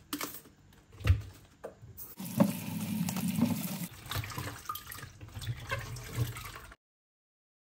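Napa cabbage leaves snapped and rustled off the head, then a tap running into a plastic bowl in a stainless steel sink for about two seconds, and the leaves splashed and rubbed about in the water as they are washed. The sound cuts off abruptly near the end.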